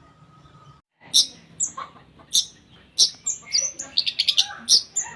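Long-tailed shrike (cendet) singing loudly from about a second in: a varied run of sharp, high whistled notes and quick chattering trills.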